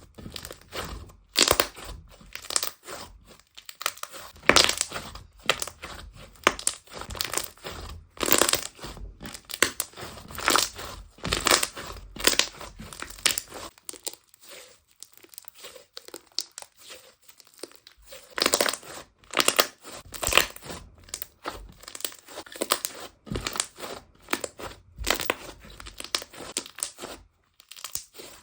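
Homemade slime being squeezed, pressed and stretched by hand, giving a dense run of irregular clicks and pops, with a quieter stretch about halfway through.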